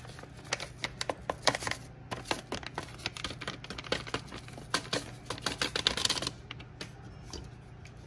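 Taco seasoning packet crinkling and being tapped as the powder is shaken out, a run of quick irregular clicks that dies away about six seconds in.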